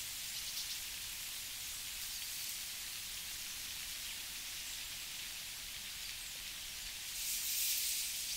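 Outdoor nature ambience: a steady high hiss, growing louder for a moment near the end.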